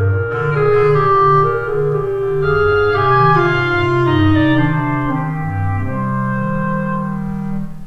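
Instrumental background music: sustained chords, with a line stepping downward in pitch over changing bass notes.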